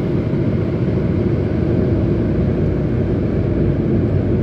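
Steady low road and engine rumble heard inside a 2010 Ford Focus cruising at highway speed, about 100 km/h.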